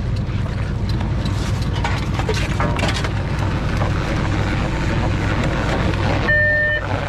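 Crab boat's engine running steadily with a low drone and wind on the microphone while a pot line is hauled up over the davit block. Near the end, a short high beep sounds for about half a second.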